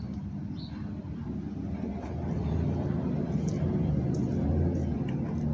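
Low engine rumble of a nearby motor vehicle, growing louder from about two seconds in.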